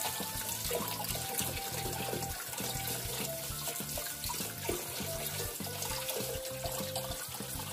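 Kitchen tap running into a basin already full of water, splashing steadily as a carrot is washed in the stream.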